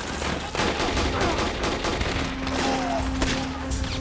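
Sustained movie gunfire: automatic rifles and machine guns firing many overlapping shots in rapid succession. A low steady tone comes in about halfway through.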